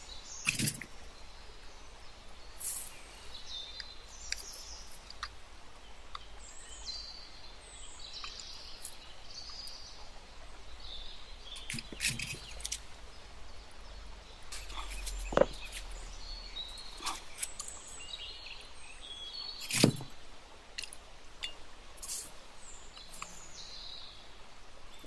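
Scattered light clicks and knocks from a stained-glass panel and hand tools being handled on a work mat, over a steady faint hiss, with the sharpest knocks about half a second in, around the middle and about five seconds before the end.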